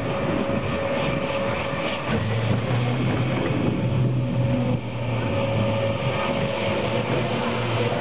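Roller coaster train running along its track, with a steady rumble and a low hum, heard from the front car.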